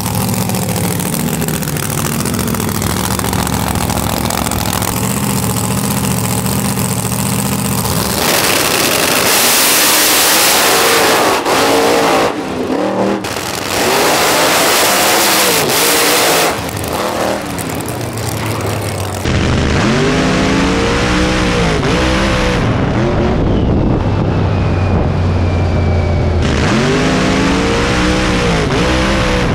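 Drag race car engines idling steadily at the start line, then two cars launching at full throttle about eight seconds in and running loud for several seconds. Later an engine revs in repeated rising and falling blips, heard from a camera on the car's hood, and goes to full throttle again near the end.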